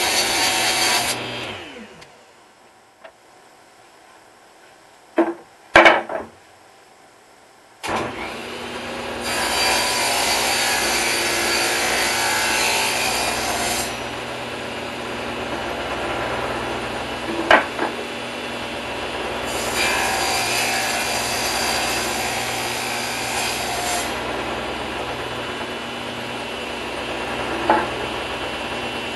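Table saw cutting a 3/8-inch rabbet along the edge of a plywood panel. The saw winds down at the start, a few knocks follow as the board is handled, then the saw starts about eight seconds in and runs steadily, with two louder stretches of cutting as the panel is fed through and a couple of sharp knocks.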